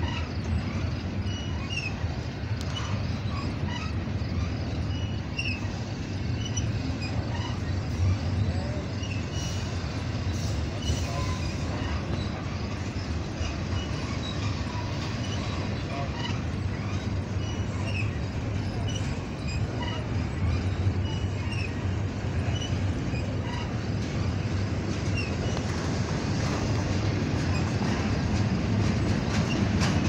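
Norfolk Southern double-stack intermodal freight train passing at close range: a steady rumble and rattle of steel wheels on the rails, with scattered short high squeaks.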